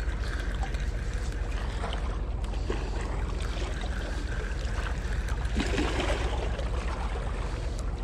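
Spinning reel being cranked steadily, retrieving line under the load of a hooked blue catfish, over a steady low rumble.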